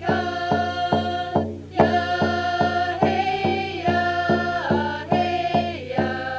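A group singing a First Nations song with hand-held frame drums struck in a steady beat, about two strokes a second.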